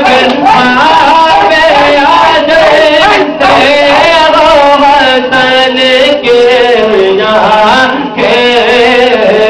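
Music: a man singing a wavering, ornamented melody over a steady low held note.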